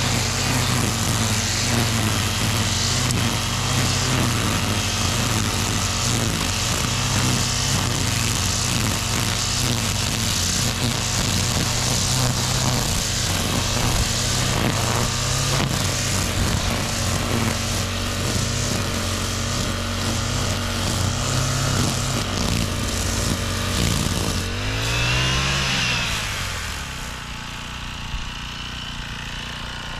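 Petrol brush cutter with a nylon trimmer line running at high speed, cutting grass along stones. About 25 seconds in, the engine is throttled back: its note swings down and up, then settles to a quieter idle.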